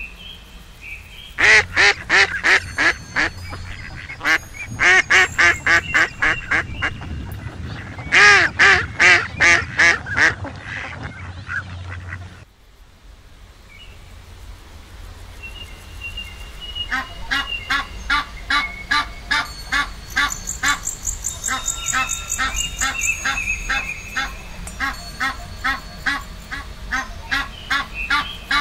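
Waterfowl calling: fast runs of repeated honking calls, about four a second, that break off suddenly partway through. After a short lull a denser chorus of overlapping repeated calls takes over.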